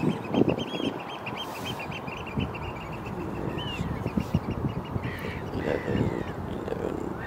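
Oystercatchers piping: a fast run of short, high calls for the first three seconds or so, then scattered single calls, over wind rumbling on the microphone.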